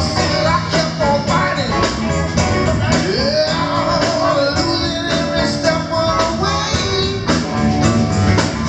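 Live band playing: a male singer sings into a microphone over electric bass, a drum kit and keyboard, with a steady beat.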